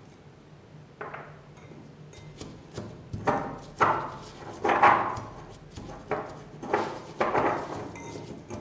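Stainless steel pestle pounding in a stainless steel mortar, crushing dried fish and chillies into a chutney paste. The dull strokes start about a second in and go on at roughly two a second.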